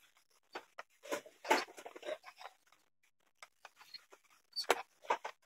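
Small wooden parts being handled: the hinged wooden arms of a homemade stand are moved and set down, giving irregular light clicks, taps and scrapes, with louder knocks about a second and a half in and near the end.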